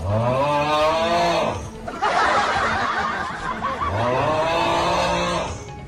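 Gusty wind rushing and tent fabric flapping, with men's drawn-out shouts and laughter over it. The wind is loudest about two seconds in, between two long shouts.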